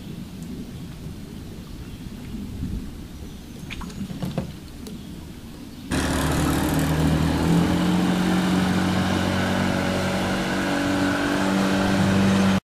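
Low rumble with a few light knocks, then about six seconds in, a small boat outboard motor starts being heard running steadily from aboard the boat. Its pitch rises slightly soon after. It cuts off abruptly near the end.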